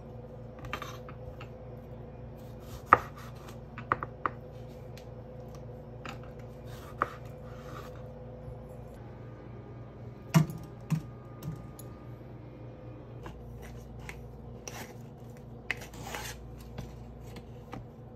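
Chef's knife cutting strawberries on a bamboo cutting board: soft slicing and scraping with a few sharp knocks of the blade on the wood. About ten seconds in comes a louder metal clank from a stainless steel colander as the strawberry pieces are handled, all over a steady low hum.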